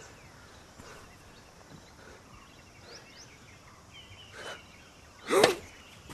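Quiet outdoor ambience with small birds chirping. About five seconds in comes the loud hit of a tennis serve, the racket striking the ball with a short grunt from the player.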